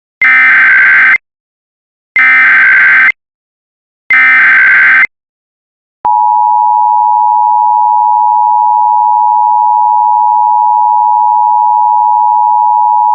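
Emergency Alert System signals for a Required Monthly Test. First come three one-second bursts of SAME header data tones, about a second apart. About six seconds in, the steady two-tone EAS attention signal begins and holds.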